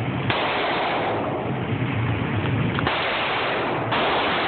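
Three pistol shots at a shooting range: one just after the start, then two about a second apart near three seconds in. Each cuts in sharply and dies away slowly, heavily compressed by the recording.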